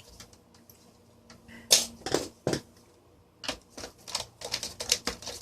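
Hard plastic clicks and knocks from handling the base of a Vornado desk fan while working out its remaining rubber feet to reach the screws: a few separate knocks, then a quick run of small clicks from about three and a half seconds in.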